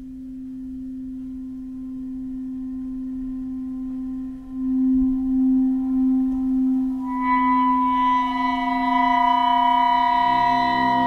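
Contemporary chamber music for clarinet, cello and pre-recorded tape: one long held note that swells about four seconds in, joined about seven seconds in by several higher sustained tones, with a lower note entering near the end.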